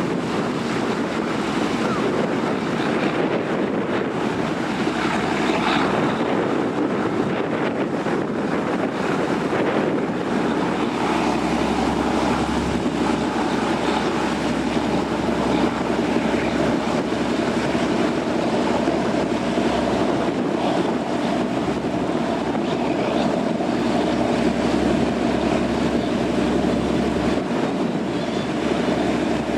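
High-speed passenger ferry passing: rushing water from its bow wash and hull, with a steady engine drone that grows clearer about a third of the way through, and wind buffeting the microphone.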